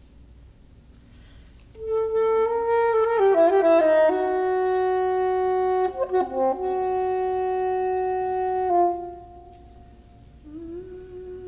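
Soprano saxophone playing solo: a loud note enters about two seconds in, followed by a few quick changing notes, a brief stuttering break and a long held note that stops about nine seconds in; a softer note begins near the end.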